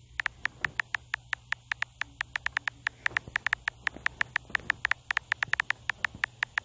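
Smartphone on-screen keyboard typing clicks: a quick, uneven run of short taps, about seven a second, one for each letter as a text message is typed.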